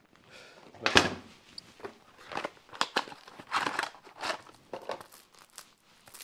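Crinkling and tearing of a chainsaw chain's packaging as the new chain is pulled out, then the loose chain rattling as it is uncoiled by hand. Irregular handling noises, loudest about a second in.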